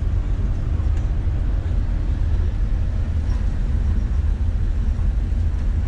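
Tour bus interior while driving: steady low engine and road rumble.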